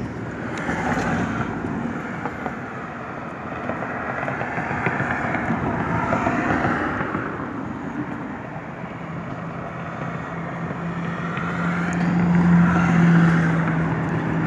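Outdoor road-vehicle noise that swells and fades several times, like traffic going by, with a steady low engine hum coming in about ten seconds in and growing louder near the end.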